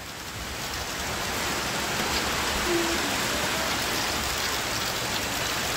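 Rain pouring down steadily: an even, dense hiss of falling rain.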